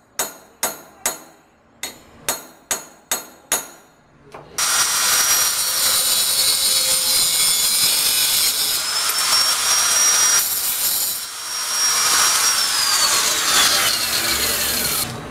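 A hammer striking a metal part about eight times, each blow ringing. Then an angle grinder starts and grinds steel with a loud, steady high whine; near the end it is switched off and the whine falls as the disc spins down.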